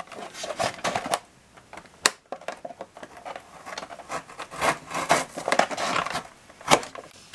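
Toy box packaging being slit open: a pocket tool's hook blade scratches through the tape seals while the plastic window and card crackle and click irregularly under the hands, with a couple of sharper clicks.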